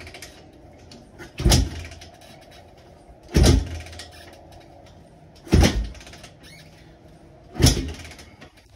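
Kick-starting a Honda TRX450R's big-bore 479 cc single-cylinder engine on its first startup after the rebuild: four kicks about two seconds apart. Each kick is a short burst as the engine turns over without catching.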